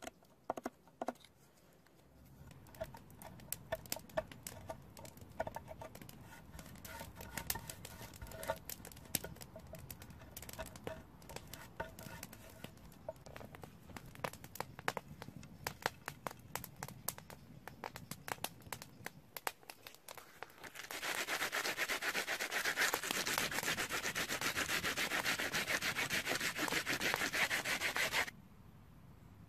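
Knife blade scraping and shaving green wood along a crossbow stock's flight rail, as many small clicks and scrapes. About two-thirds of the way through, a louder, steady rasp of the rail being sanded back and forth takes over, then cuts off abruptly a little before the end.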